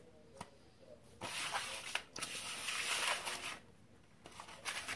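Kinetic sand rustling and crunching under hands and a plastic mold pressed into it: a gritty rustle of about two seconds, with a few light clicks and a short return near the end.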